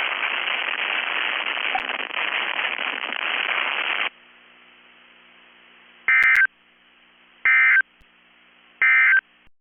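Radio hiss for about four seconds that cuts off sharply, then three short bursts of digital data tones about 1.3 s apart over a faint hum. The bursts are the EAS/SAME end-of-message code that closes a NOAA Weather Radio Required Weekly Test.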